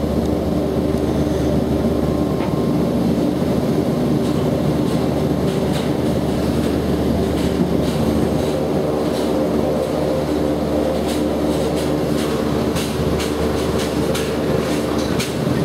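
Double-monocable gondola cabin rolling through its station: a steady mechanical hum with several pitched tones, joined from about five seconds in by a run of irregular clicks and clacks as the cabin's carriage passes over the station's wheels and rails.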